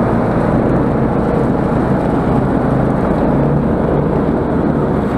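Snowmobile engine running steadily while travelling along a snow track, a loud even drone with tracks and skis hissing over the snow.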